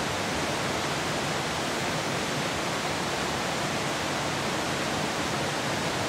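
Steady rushing of a fast mountain stream, an even noise without change.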